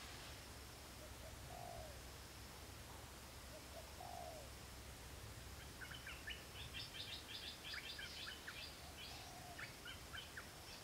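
Faint outdoor ambience with birds calling: a few short, falling low-pitched calls, and from about six seconds in a fast chattering run of sharp, high notes. A low steady hum lies underneath.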